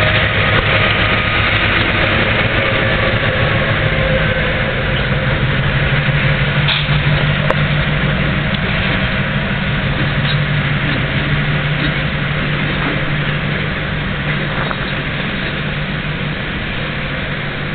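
Diesel locomotive engine of an Amtrak switcher running steadily with a low hum as it slowly hauls a coupled locomotive consist, growing gradually quieter toward the end.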